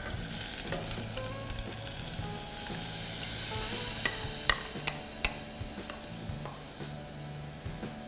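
Shrimp and squid in green curry paste sizzling in a saucepan as coconut cream is poured in and stirred with a wooden spatula, with scattered clicks of the spatula against the pan. The sizzle swells in the middle and eases toward the end as the cream fills the pan.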